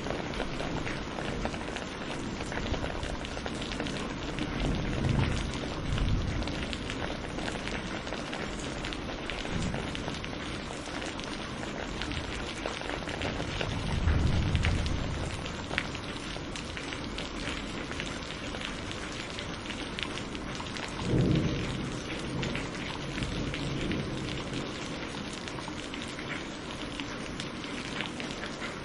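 Steady rain falling with a dense patter of drops, and short low rumbles of thunder three times: a few seconds in, about halfway through, and about two-thirds of the way through.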